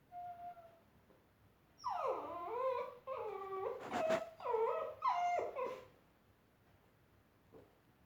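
Labrador puppy whimpering: one short faint whine at the start, then a string of about five louder whines with wavering pitch, one sharp click among them.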